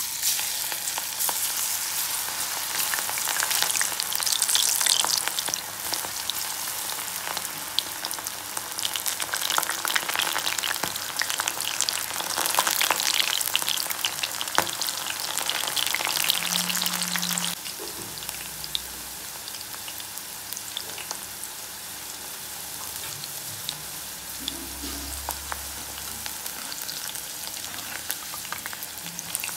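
Batter-coated ivy gourd (dondakaya) pieces deep-frying in hot oil in a metal kadai: a loud, crackling sizzle that starts suddenly as they go into the oil, then drops to a quieter, steady sizzle a little past halfway.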